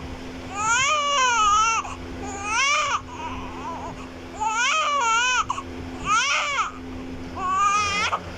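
A baby crying: about five rising-and-falling wails in a row, each roughly half a second to a second long, with short breaths between them. A faint steady hum runs underneath.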